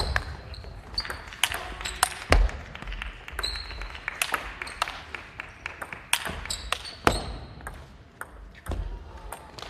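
Table tennis rally: the plastic ball clicking sharply off the rackets and table in quick, irregular succession, with short high squeaks of shoes on the wooden hall floor.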